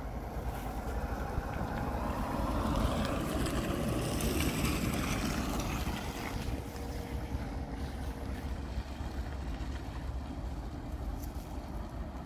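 1977 Cadillac Fleetwood 75's 7-litre V8 running as the limousine drives slowly past. It is loudest as the car goes by close a few seconds in, then eases off as it moves away, with wind rumbling on the microphone.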